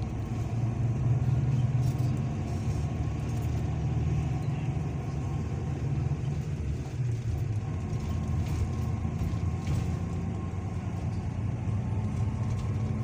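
Steady low rumble of a long-distance coach bus on the move, heard from inside the passenger cabin: engine and road noise.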